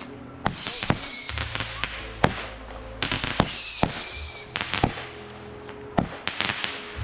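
Consumer fireworks going off: two high whistles, each about a second long and dropping slightly in pitch, come about half a second in and about three and a half seconds in, amid repeated sharp bangs and crackling pops.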